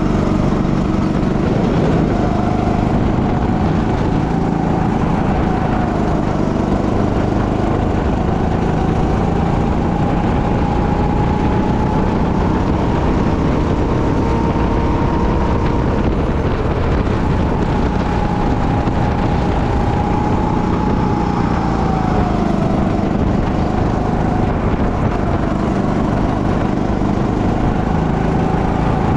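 Go-kart engine running hard at racing speed. Its pitch climbs slowly for about fifteen seconds, falls off about two-thirds of the way through, then climbs again, over a steady rush of noise.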